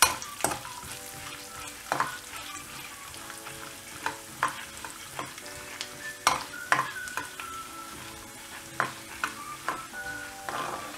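Chana dal and urad dal frying in hot oil in a kadai: a steady sizzle while a spatula stirs them, with sharp clicks scattered through, the loudest a few about six seconds in.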